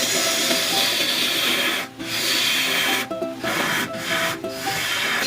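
Something rubbing against a wooden workpiece turning on a lathe: a scratchy hiss broken by several brief pauses, with background music underneath.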